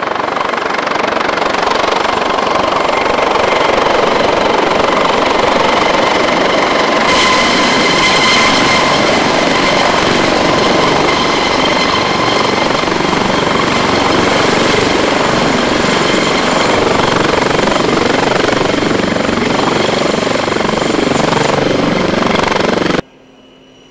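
Eurocopter AS365 Dauphin helicopter running loud as it comes in, hovers and lands: steady rotor noise with a high turbine whine over it, the whine growing stronger about seven seconds in. The sound cuts off abruptly near the end.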